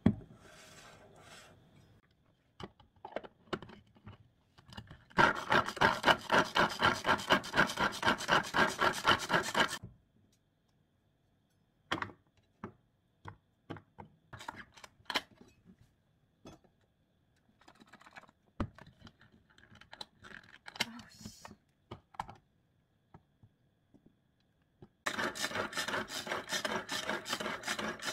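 Hand-powered food chopper chopping carrots, its blades driven round in fast rhythmic strokes, several a second, in two runs: one a few seconds in and another starting near the end. In between come scattered knife cuts and knocks on a plastic cutting board.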